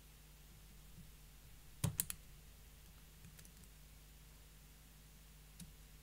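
Small metallic clicks from picking the pins of a Fontaine 7-pin pump lock with a slider pick: a quick cluster of three sharp clicks about two seconds in, with a few fainter ticks before and after.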